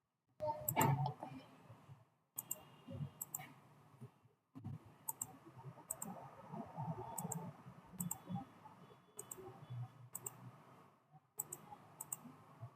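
Computer mouse clicking, short sharp press-and-release clicks coming irregularly about once a second over faint low background noise.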